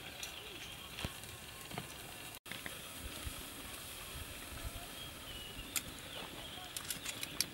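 Small wood fire crackling under a wire grill, with a faint sizzle as raw beef slices are laid on it with metal tongs. Scattered sharp clicks, more of them near the end.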